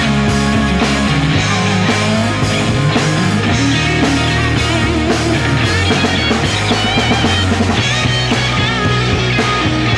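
Background rock music with guitar and drums, loud and steady.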